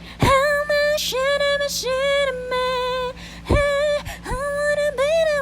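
Background pop song: a woman's voice sings a melody of held notes over a steady low backing, with a few deep kick-drum hits.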